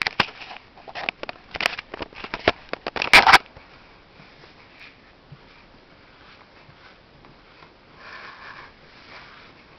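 Close, irregular rustling and short sniff-like noises from a cat being combed, packed into the first three seconds or so and loudest around three seconds in, then only faint rustling.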